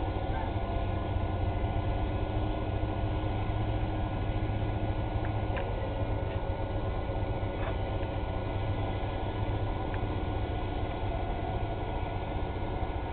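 Fishing boat's diesel engine running steadily with a low drone as the boat pushes into harbour ice, with a few faint sharp clicks.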